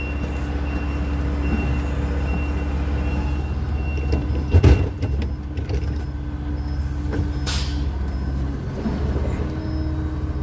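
Logging truck's diesel engine running steadily at low revs, heard from inside the cab while the truck backs slowly onto the roadside. About halfway through there is one loud knock, and a few seconds later a short hiss.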